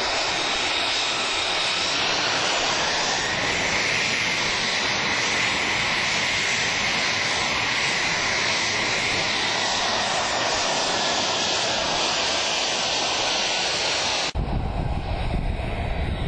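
F-35 Lightning II's single Pratt & Whitney F135 turbofan running at low power with a steady jet whine. About fourteen seconds in, the sound cuts abruptly to a deeper rumble.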